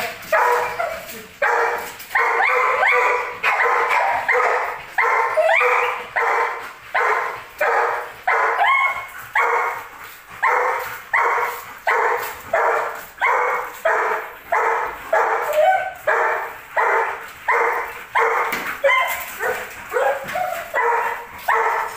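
Belgian Malinois barking over and over, about two barks a second, without a break.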